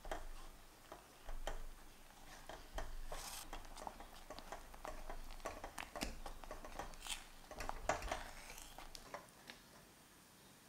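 Silicone spatula stirring and scraping thickening lemon curd in a saucepan: faint, irregular soft scrapes, squelches and light clicks against the pan, easing off near the end.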